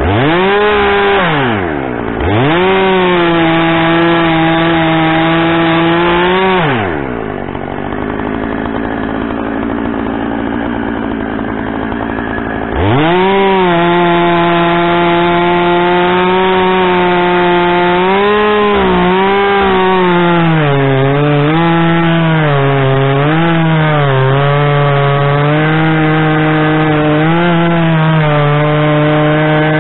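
Gas chainsaw cutting through a log: it revs up twice near the start and cuts for about four seconds, drops back to idle for about six seconds, then runs at full throttle through the cut for the rest, its engine pitch dipping and recovering again and again as the chain bogs in the wood.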